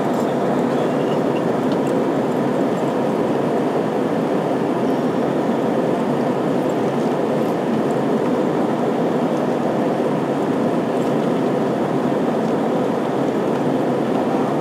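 Steady, unbroken cabin noise inside an Airbus A320 climbing out after takeoff: the jet engines and the air rushing past the fuselage blend into an even low rumble.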